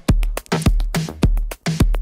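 Electronic dance music with a drum-machine beat: a heavy bass kick about twice a second with snappy percussion hits between, no vocals.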